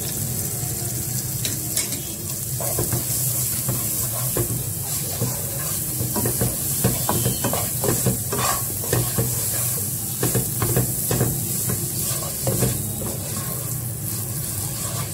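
A wooden spatula stirring and scraping jaggery and butter around a nonstick pan over low heat, with a steady sizzle as the jaggery melts down into caramel. The scraping strokes come thick and fast through the middle.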